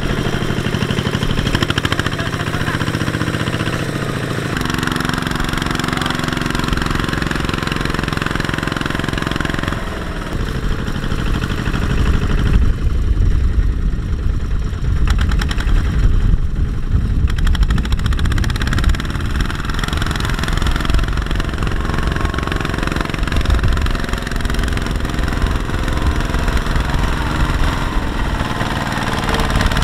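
Single-cylinder diesel engine of a Kubota two-wheel walking tractor running under load while hauling a trailer of rice sacks through deep mud. Its note shifts a couple of times in the first ten seconds. From about twelve seconds in it turns to a heavy, uneven low thumping as the tractor bogs down in the mud.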